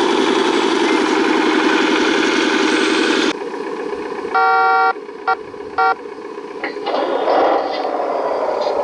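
Engine sound of a scale RC construction truck running steadily, then cutting off suddenly about three seconds in. A horn sounds once long and twice short, followed by a falling tone as the engine sound comes back near the end.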